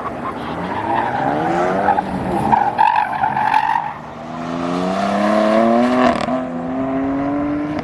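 A car on the autocross course accelerating hard, its engine pitch rising in repeated pulls through the gears, with tire squeal early on.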